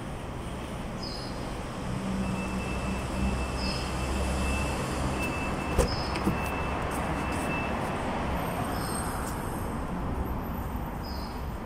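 Steady hum of a large covered car hall with a low rumble, faint short chirps every couple of seconds, and two sharp clicks about six seconds in as the Hyundai Veloster's front door latch is opened.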